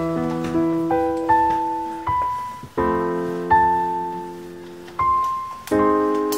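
Background music: a slow piano piece of single ringing notes that fade, with fuller chords struck about three seconds in and again near the end.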